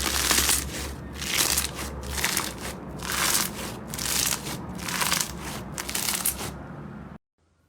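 Slime being squeezed and pressed by hand, a noisy squish about once a second, seven times in all. The sound cuts off abruptly near the end.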